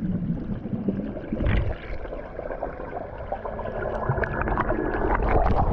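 Sea water splashing and gurgling, with short irregular splashes.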